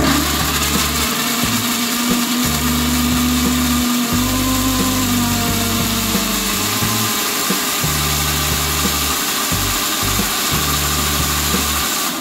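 Electric mixer grinder (blender) running steadily, grinding chutney. Its motor hum dips slightly partway through as the load shifts.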